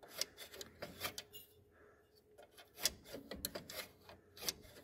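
Irregular light metallic clicks and rubbing as the hardware on a lawn tractor's steering sector gear is tightened by hand.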